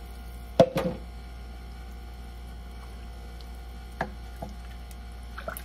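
Water pouring from a plastic pitcher into a pot of chunky tomatoes, with a sharp knock about half a second in. A wooden spoon then stirs the soup, knocking lightly against the pot twice about four seconds in.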